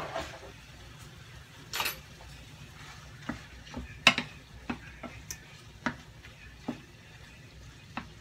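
Shrimp sizzling faintly as they sauté in butter and olive oil in a skillet, while a wooden spatula stirs and turns them. The spatula knocks and scrapes against the pan at irregular intervals, with the sharpest knock about four seconds in.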